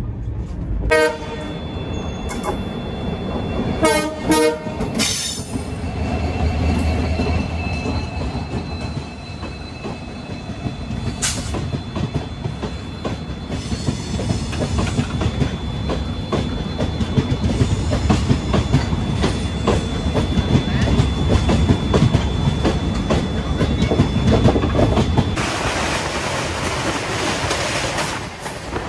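Rajdhani Express passenger train running on the rails, with the wheels clattering steadily over the track and a thin high squeal held for most of the time. The train horn sounds briefly about a second in and again around four to five seconds in. Near the end a louder hiss of rushing air and track noise comes in.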